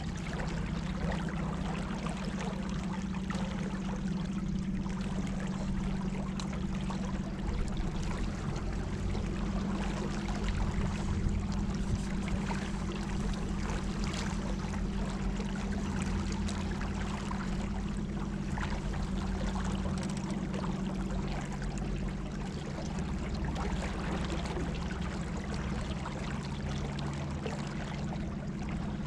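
Water rushing and splashing along a small boat moving on the river, over a steady low hum.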